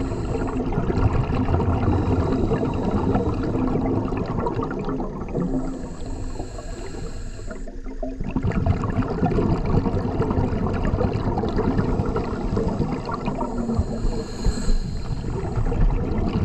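Underwater sound of a scuba diver breathing through a regulator: the bubbling rush of exhaled air, broken by a high hiss of inhalation about five seconds in and again near the end.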